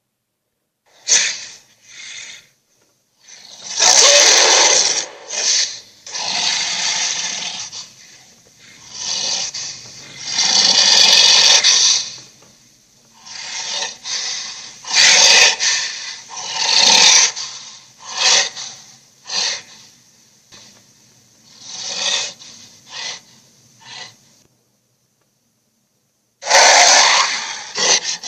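Giant gorilla monster sound effects: a string of hoarse growls, snorts and roars, each lasting a second or two, with short pauses between them and a gap of about two seconds near the end.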